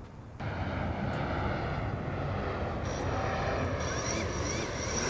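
DJI Phantom 4 quadcopter's motors and propellers spinning at idle on the ground, a steady whir that starts abruptly about half a second in. A thin high whine joins about three seconds in.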